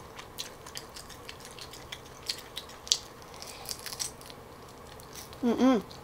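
Close-miked crunching and chewing of crisp, browned grilled cheese, heard as a scatter of short sharp crackles. A brief vocal sound comes near the end.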